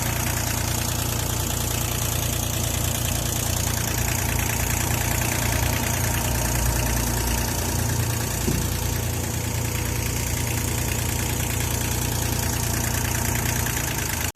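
A heavy-equipment engine idling steadily, with a slight rise in the engine note about two-thirds of the way through.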